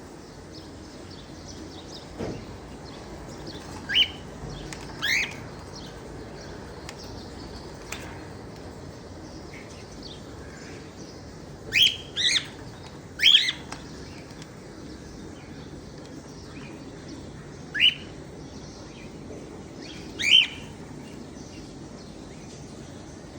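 Cockatiels giving short rising chirps, singly or in quick pairs at irregular intervals, about seven in all over a steady background hiss.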